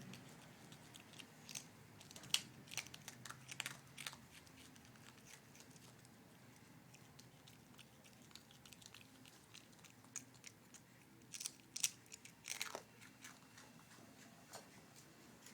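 A monkey chewing and biting crunchy food: sharp crunches in two clusters, about two seconds in and again around eleven to thirteen seconds, with quiet chewing between.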